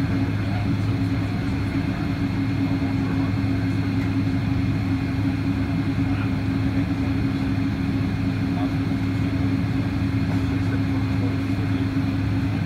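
Steady cabin hum inside a Boeing 777-200 taxiing: an even drone of the engines and cabin air with no change in level.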